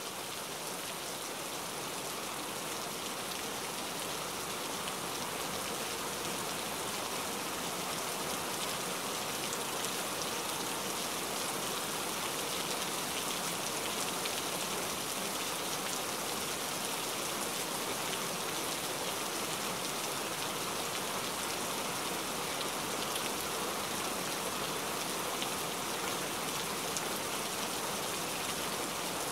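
Steady rain, an even hiss with scattered small drop ticks.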